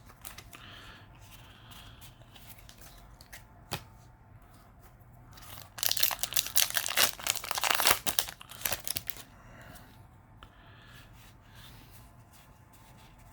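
Foil trading-card booster pack being torn open and crinkled: a few seconds of loud tearing and crackling about halfway through, with faint handling clicks around it.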